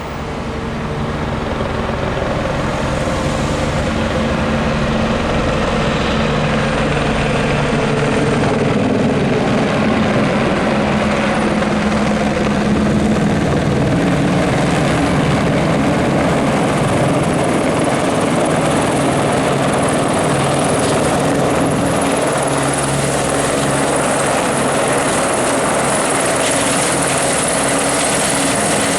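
Helicopter running close by, loud and steady. It grows louder over the first couple of seconds, then holds.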